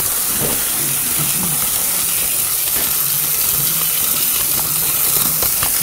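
Steady hissing rumble of an H0 model train running along its track, picked up by a phone riding on the train.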